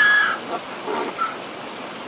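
Donkey braying: the bray's last loud note ends about half a second in, followed by a couple of weaker notes, then a steady outdoor hiss like running water.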